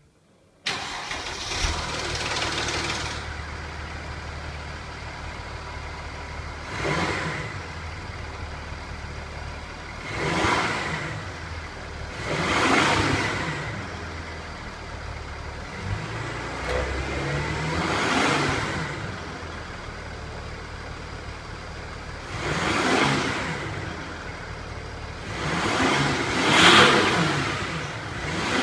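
Mercedes-Benz C320 CDI (W204) 3.0-litre V6 diesel starting up about half a second in, heard at the tailpipes. It then idles, with several short throttle blips that rise and fall back to idle, the last two close together near the end.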